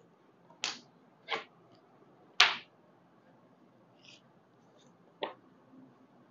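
Plastic ruler and tailor's chalk being handled on cloth: four short, sharp scrapes and knocks, the loudest about two and a half seconds in, with a couple of faint scratches after.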